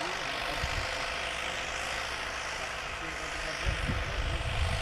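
Farm tractor's engine running steadily under load while pulling a plough, with low rumbling thumps about a second in and again near the end.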